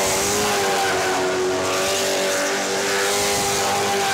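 Original Ford Mustang Hoonicorn's naturally aspirated V8 held at steady revs while spinning its tyres through a smoky donut, with tyre noise under the engine note.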